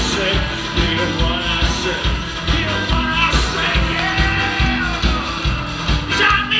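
Live band music with a steady, regular drum beat under sustained pitched instruments.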